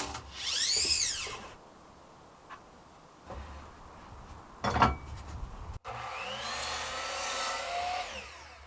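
Power tool working pine boards: a whine that rises and falls in pitch for about a second, a sharp knock about five seconds in, then a longer whine with shifting pitch that fades out near the end.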